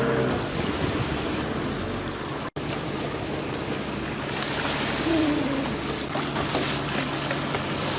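Sea water sloshing and splashing against the hull of a small fishing boat, with the low steady hum of the boat's engine underneath. The splashing grows livelier from about halfway, as a fish is worked alongside with a gaff.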